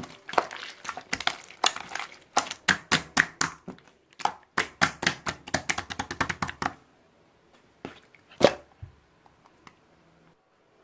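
A quick run of sharp clicks or taps, several a second, that stops about two-thirds of the way in, followed by one louder knock.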